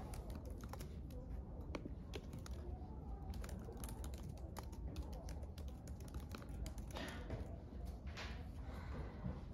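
Fingers typing on a laptop keyboard: a run of irregular, quick key clicks over a low steady room hum.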